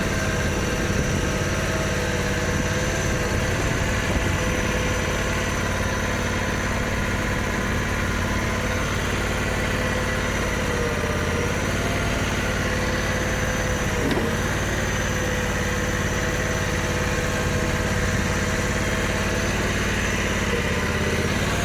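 ATS mini skid steer's 23-horsepower gasoline engine running steadily at a constant speed, with a brief dip in engine speed about two-thirds of the way in.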